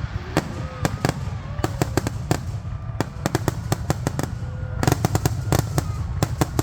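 Fireworks going off, many sharp cracks and pops in rapid, irregular succession over a steady low rumble, with a denser cluster of bangs about five seconds in.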